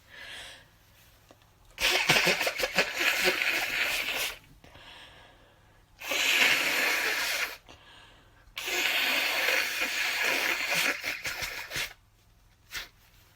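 A person blowing a heavily congested nose: three long blows, the first and last about three seconds each, the middle one shorter.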